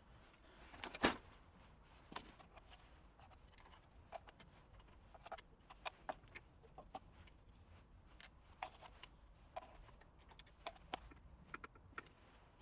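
Scattered light clicks and clinks of metal outboard-motor parts and tools being handled on a workbench, with one sharper knock about a second in.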